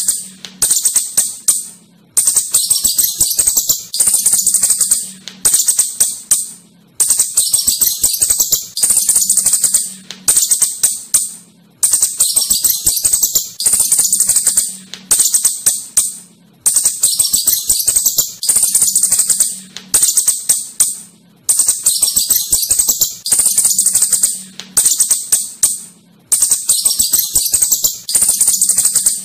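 Asian house shrew calls: shrill, rapid chattering in bursts of one to two seconds, one after another with short gaps, over a faint steady low hum.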